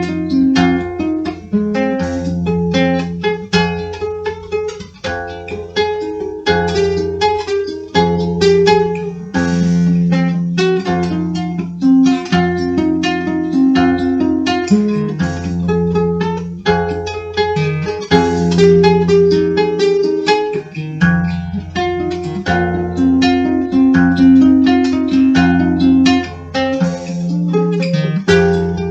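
Music: acoustic guitar picking a steady run of plucked notes over held low bass notes.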